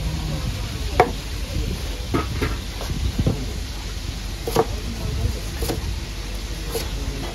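Kitchen knife cutting breaded fried cutlets on a plastic cutting board and plate, with scattered sharp knocks of the blade against the board, the loudest about a second in, over a steady kitchen background.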